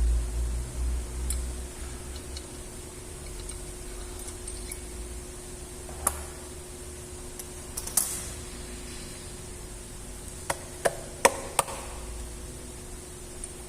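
Sharp, scattered clicks and taps of hand tools and small engine parts being handled during cylinder-head disassembly: a few single knocks, then four quick clicks near the end, over a faint steady hum.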